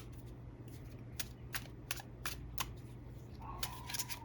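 Tarot cards being shuffled by hand: a string of sharp, irregular card clicks, two or three a second. Near the end comes a faint, brief high whine from a dog.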